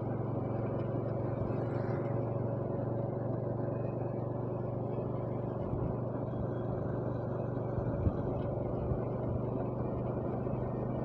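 Vehicle engine running steadily at cruising speed, with road noise and a small knock about eight seconds in.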